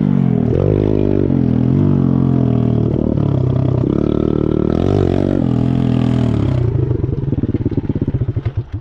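Chinese DMX pit bike's single-cylinder four-stroke engine being ridden, its revs rising and falling over and over, pretty loud. About seven seconds in it drops to a slow, pulsing idle and cuts out just before the end.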